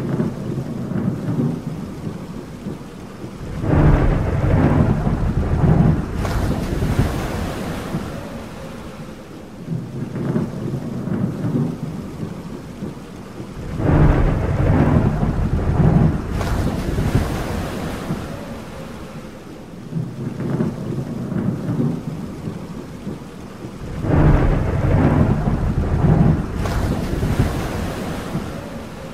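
Thunderstorm: rolling thunder rumbles three times, about ten seconds apart, over steady rain. Each rumble is followed by a brief surge of hiss.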